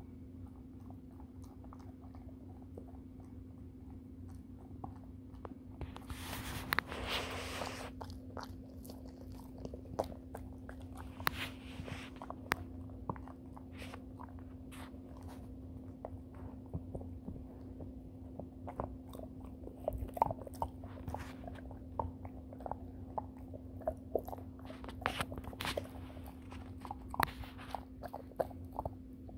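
Golden retriever puppy chewing a Whimzees dental chew: irregular sharp crunches and clicks of teeth on the chew, sparse at first and growing denser in the second half. A short burst of noise comes about seven seconds in.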